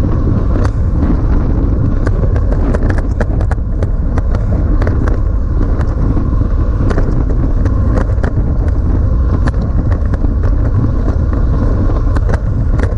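Wind rushing over the microphone of a camera on a bicycle riding at race speed: a loud, steady low rumble, crossed by scattered sharp clicks.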